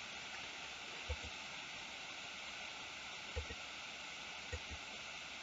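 Steady faint hiss of the recording's background noise, with four faint, soft taps from a computer mouse being clicked.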